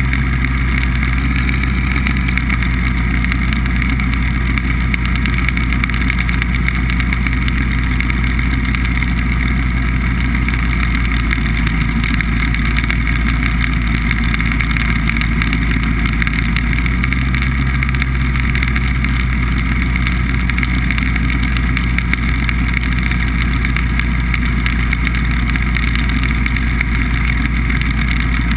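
BBV2+2 hovercraft's engine and lift/thrust fan running steadily while it cruises over ice. The engine speed shifts slightly twice, about a third and about two-thirds of the way through.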